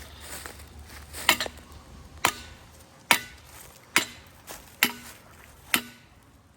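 Hammer blows: six sharp knocks at an even pace, a little under a second apart, each with a brief ring.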